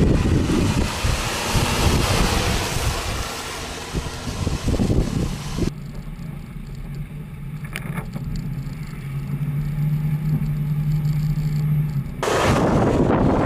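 Jeep Grand Cherokee WK2 driving through mud ruts, its engine running under load with tyre and mud noise, heavily covered by wind buffeting the microphone for the first half and again near the end. In between, the sound changes suddenly to a clearer steady engine hum that grows louder as the SUV comes closer.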